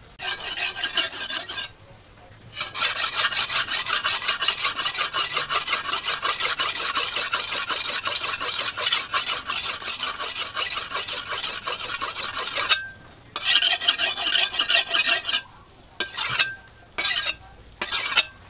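Cleaver blade being honed on a wet sharpening stone: fast back-and-forth strokes of steel scraping across the stone. The strokes come in long runs with brief pauses, then a few short passes near the end.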